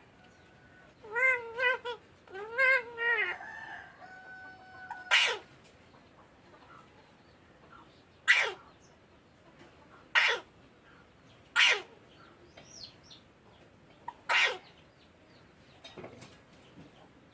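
Green parakeet calling: a few short warbling calls in the first three seconds, then five loud, sharp squawks spaced a few seconds apart.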